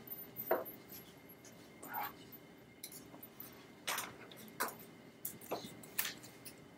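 Quiet room with scattered soft clicks and rustles, one every second or so, from people handling sheets of paper and pens, over a faint steady hum.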